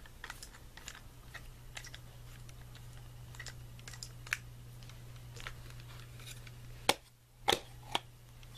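Small irregular clicks and scrapes of a Phillips screwdriver backing a screw out of a car alarm siren housing. Three sharper knocks come near the end.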